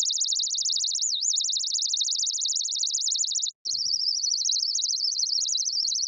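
Synthesizer patch in ZynAddSubFX: a sound through a resonant bandpass filter swept by a fast LFO, giving a high, rapid chirping flutter. About a second in, one sweep dips lower in pitch and comes back up. It stops briefly about halfway through and resumes as a narrower, wavering band.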